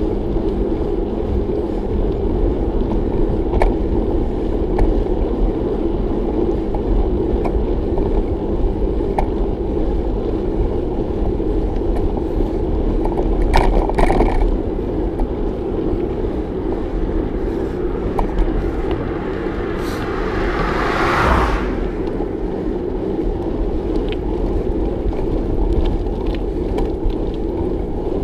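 Bicycle ride heard from the bike: steady wind rush over the microphone with tyre rumble on the road. A few clicks sound around thirteen seconds in, and about twenty seconds in a whoosh builds and then cuts off sharply.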